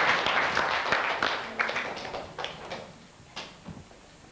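Audience applauding: dense clapping that thins out and dies away about three seconds in, ending with a few scattered single claps.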